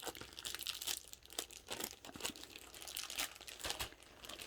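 Packaging crinkling as it is handled, a run of light irregular crackles.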